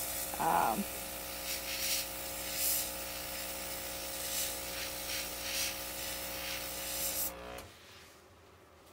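Airbrush kit's small compressor running with a steady hum while the airbrush sprays temporary ink in a hiss that swells and eases in pulses. Both cut off suddenly about seven and a half seconds in.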